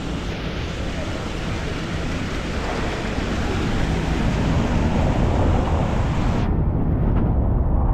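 City street noise with wind rumbling on the microphone, growing louder about halfway through.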